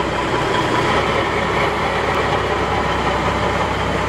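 1989 White/GMC Autocar roll-off truck's diesel engine running steadily.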